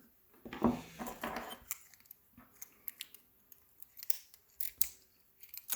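Handling noises from a safety deposit box lock and small metal tools: a scatter of light clicks and taps with some rustling, busiest about half a second to a second and a half in.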